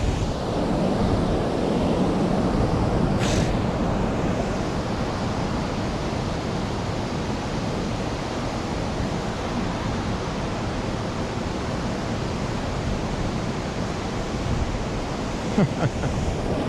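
Steady rush of water pouring below a dam, mixed with strong wind buffeting the microphone.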